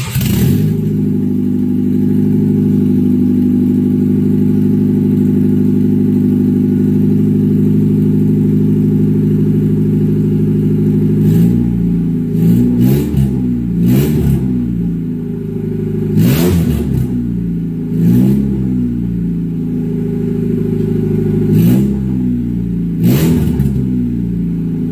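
Honda Civic's D14Z1 1.4-litre four-cylinder engine running in a test run just after an oil pan gasket change. It idles steadily for about the first eleven seconds, then is blipped with short throttle revs, about seven times, each rising and falling back to idle.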